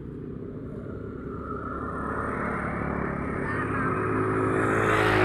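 A motor running steadily and growing louder throughout, then cut off abruptly.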